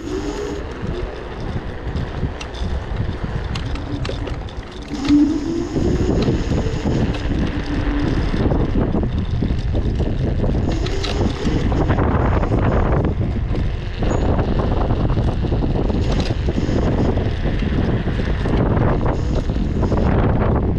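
Off-road vehicle driving with its engine running steadily and wind buffeting the microphone. A short rising tone comes about five seconds in, and the rumble grows louder from about six seconds on.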